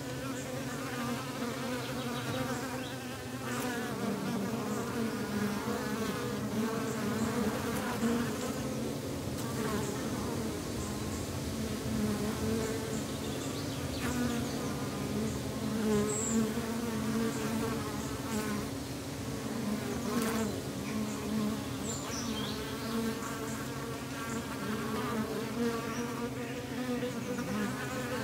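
Dense, steady humming of a honeybee colony in an opened hive box; the hum wavers slightly in pitch as the bees stir on the exposed frames. A few sharp knocks and scrapes come from the hive tool prying at the wooden frames.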